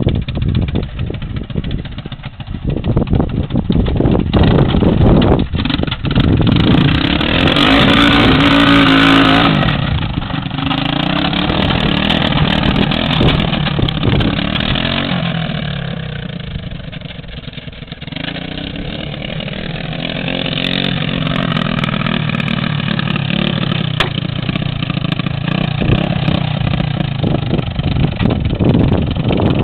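A three-wheeler's engine revving up and down as it drives through mud, revving hardest about seven to nine seconds in. It fades as the machine moves away past the middle and grows louder again as it comes back.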